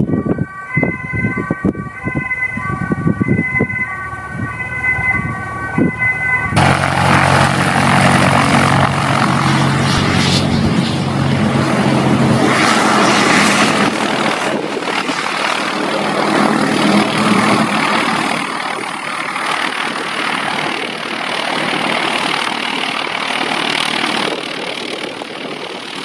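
A two-tone siren alternating between a high and a low pitch, over wind noise, for the first six seconds or so. It cuts off abruptly, and the loud, steady running of a Cessna Caravan's single turboprop engine takes over for the rest.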